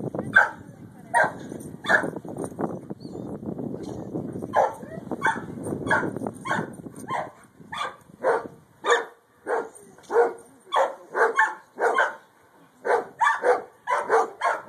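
A dog barking over and over in short barks, about two a second in the second half, with a low rumbling noise under the first half.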